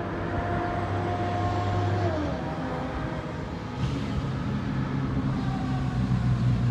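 Commuter train's diesel engine humming as it stands at the platform. Its tones dip in pitch about two seconds in, and a second engine hum comes in just before four seconds in.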